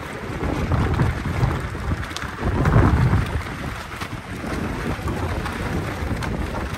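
The loose sail of a small sailing dinghy flapping in strong wind, with gusts buffeting the microphone. The flutter swells to its loudest about three seconds in.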